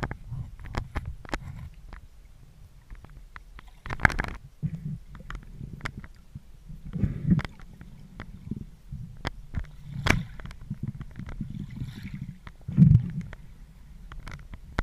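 River water recorded underwater, muffled: a steady low rumble of flowing water, with many sharp clicks and a few louder knocks about 4, 10 and 13 seconds in.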